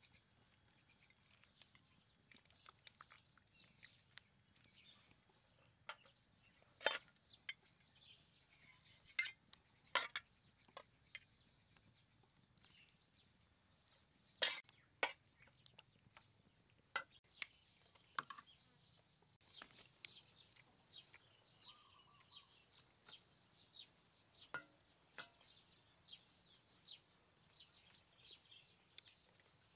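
Metal spatula clinking and scraping against a metal wok and serving tray as braised pork intestines are lifted out: sharp, scattered clinks. In the last third a bird chirps over and over in short falling notes, about one to two a second.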